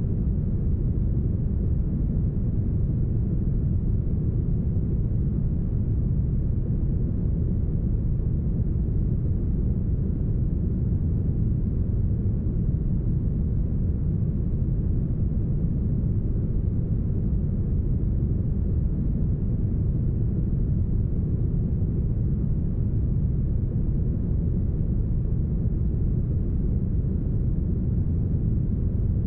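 Deep, heavily smoothed brown noise: a steady, unchanging low-pitched noise with almost nothing in the highs.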